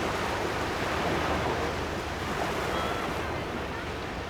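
Beach ambience: surf washing steadily on the shore, with some wind.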